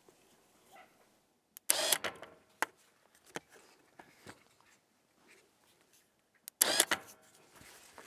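Radio-controlled electric winch on an ATV bale trailer running briefly twice, about two seconds in and near the end, its motor and gears whirring as the drum pays out line, with a click as each run starts. This is a test run of a replacement winch whose drum now turns under power.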